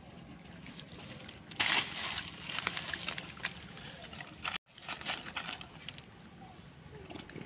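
Dry leaf litter rustling and crunching, with a loud crackling burst about one and a half seconds in and scattered crackles after it; the sound cuts out for a moment a little past the middle.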